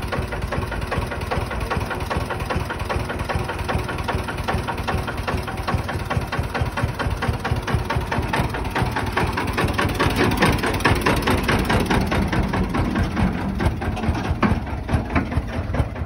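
Kirloskar water-cooled single-cylinder diesel engine of a homemade farm carrier running with a rapid, even thudding beat. It gets louder about eight to ten seconds in as the vehicle is driven off, and the beats slow near the end.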